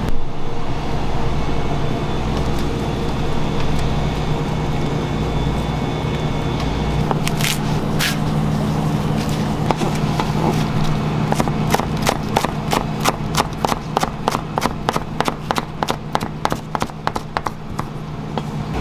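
Steady mechanical hum, with a long run of quick, evenly spaced sharp knocks, about three a second, starting about eleven seconds in.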